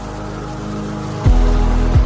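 Background electronic music: a sustained synth chord, joined just past halfway by deep, falling bass-drum beats, two of them in this stretch.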